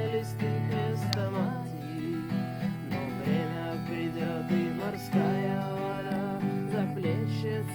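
Acoustic guitar strumming chords, an instrumental passage of a song.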